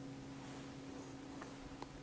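A faint, steady low hum with a light hiss, and two small clicks near the end.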